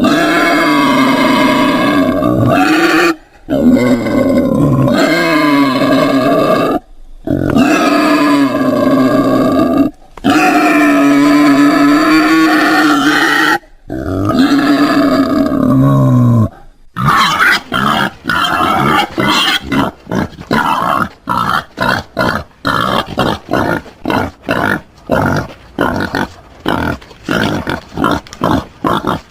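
Wild boar calling: a series of long, drawn-out pitched calls of about three seconds each with short breaks between them. From about two-thirds of the way through, these give way to a rapid run of short grunts, several a second.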